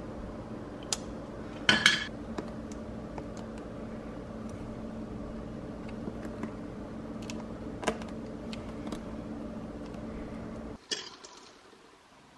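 Small sharp clicks and taps of a plastic adhesive hook and fingers against glass subway tile, with the loudest cluster about two seconds in and a few scattered clicks after. A steady low hum runs underneath and cuts off suddenly near the end.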